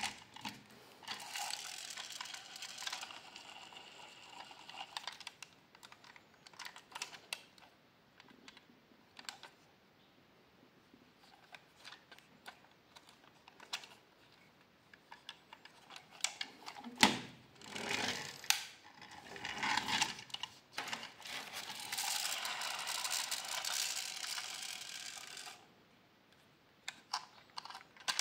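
Hard plastic toy car handled in the hands: scattered clicks and knocks of its plastic body and wheels, one louder knock about two-thirds of the way through, and two longer stretches of steady rough rubbing noise.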